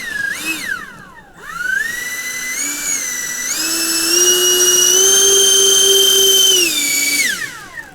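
Electric ducted fans of a scratch-built RC Lockheed L-1011 airliner whining under throttle while it taxis. The pitch dips and climbs back in the first second and a half, rises and holds high, then spools down near the end.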